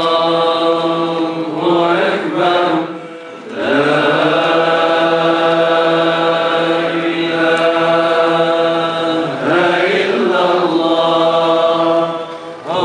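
Men's voices chanting an Islamic devotional chant in long, drawn-out phrases, one voice leading over a steady held low note. The chant breaks briefly about three seconds in and again near the end.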